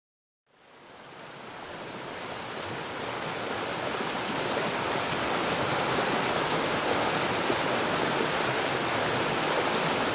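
A steady, even rushing noise like running water or hiss fades in over the first few seconds, then holds.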